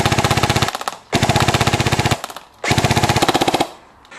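Tokyo Marui P90+ airsoft electric gun firing full-auto: the end of one burst, then two more rapid bursts of about a second each, its gearbox cycling cleanly and evenly.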